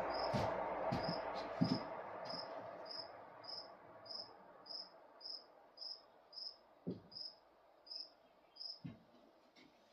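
An insect chirping steadily: short, high chirps repeating evenly a little under twice a second. Under it a hiss fades away over the first few seconds, and there are a couple of soft knocks near the end.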